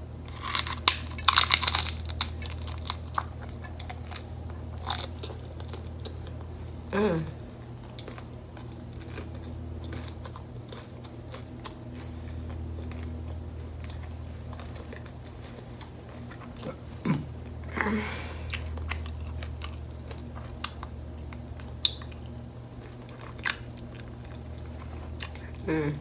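Close-up chewing of a crunchy beef taco: a burst of crunching bites in the first couple of seconds, then steady chewing with scattered mouth clicks and a few brief hums.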